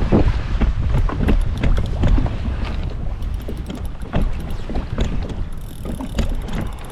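Water slapping and splashing against a kayak at sea, with irregular short knocks and wind rumbling on the microphone.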